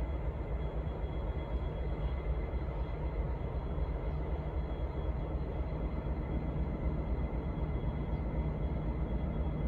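Diesel locomotive running with a steady low rumble and a faint high whine, growing slightly louder near the end.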